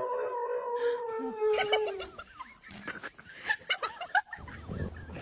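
A dog's long, drawn-out howl, held and slowly falling in pitch, ending about two seconds in. It is followed by short, broken laughter-like vocal sounds.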